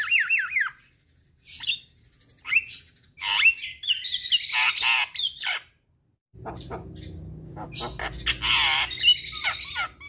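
Javan myna singing: a few falling whistled notes, then bursts of harsh squawks and chattering calls, broken by short pauses, with quick clicking notes near the end.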